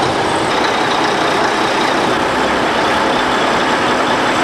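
Heavy construction equipment's engine running steadily, a loud even noise.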